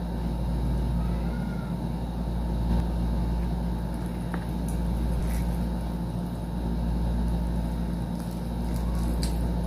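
Steady low background hum, with a few faint crunches as crispy fried chicken is bitten and chewed.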